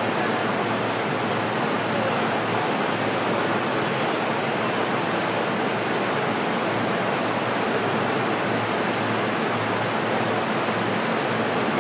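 Steady interior noise inside a JR East E233-series electric train car: an even rushing hiss with a faint low hum underneath, holding level throughout.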